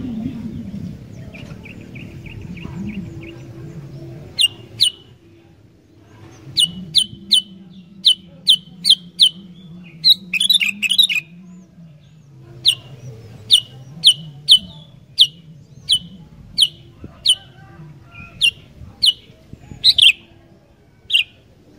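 Sooty-headed bulbul calling: a long run of short, sharp notes, each dropping in pitch, coming about two a second, broken by a brief chattering burst near the middle, after a soft trill at the start.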